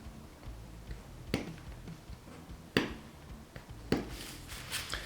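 Small hand tools working a thin copper strip: three sharp clicks spaced about a second and a half apart, then light scratching near the end.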